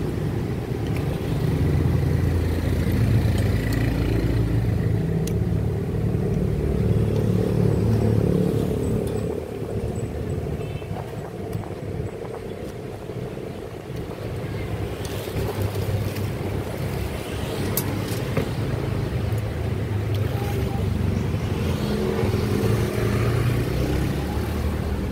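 Motor engine noise: a steady low running drone, quieter for a few seconds around the middle.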